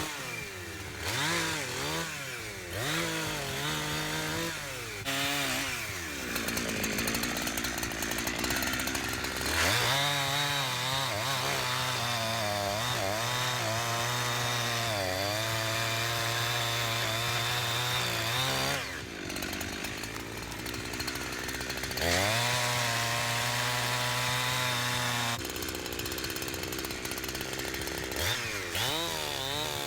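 Holzfforma G372XP two-stroke chainsaw bucking a felled dead ash trunk. The engine revs up and holds at full throttle through long cuts, dropping back toward idle twice between them and revving again near the end.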